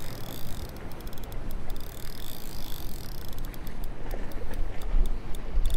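Large spinning reel being cranked by hand, giving irregular runs of fast light ticks, over wind buffeting the microphone and small waves washing against jetty rocks.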